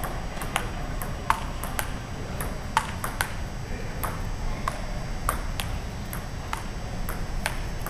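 Table tennis rally: the celluloid-type ball clicking off the table and the rubber paddles, a long even run of sharp pocks at about two to three a second, some hits louder than others.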